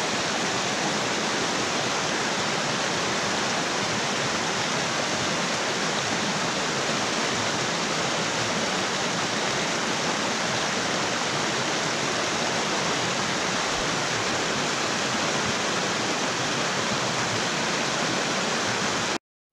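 Shallow rocky river rushing over small rapids: a steady, even rush of water that cuts off suddenly near the end.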